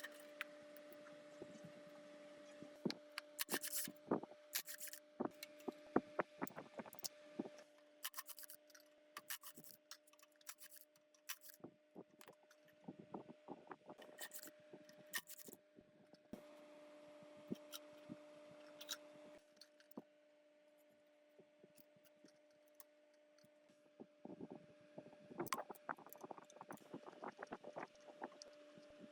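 Irregular scraping, rubbing and clicking of hand tools on metal parts, over a steady low hum that stops for a few seconds past the middle.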